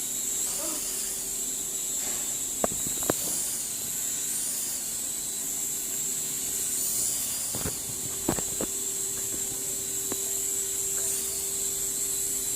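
Small electric rotor motors of a toy hand-sensor (infrared induction) RC helicopter running in flight, a steady whirring hum with a hiss on top. Sharp knocks twice about three seconds in and a cluster of three around eight seconds in.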